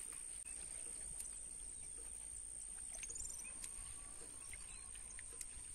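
Quiet waterside ambience with faint bird chirps, including a quick run of short high chirps about three seconds in, over a thin steady high-pitched tone.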